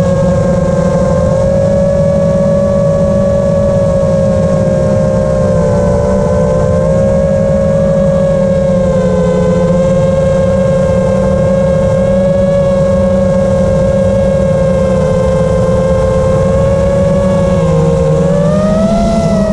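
FPV quadcopter's motors and propellers whining steadily over a low rushing noise, the pitch wavering slightly and rising briefly near the end.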